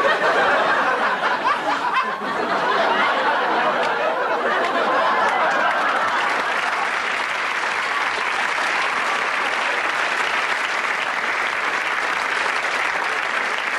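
Audience applauding, a dense steady clapping that is a little louder in the first few seconds, with some laughter mixed in.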